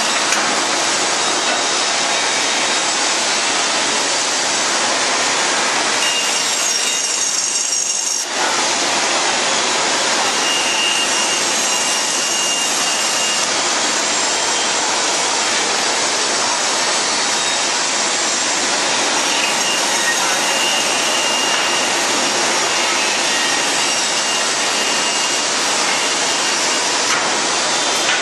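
CNC band saw cutting chair-leg shapes from a stack of wooden boards, the blade running through the wood in a steady, dense whir. The sound thins for about two seconds around seven seconds in, then carries on as before.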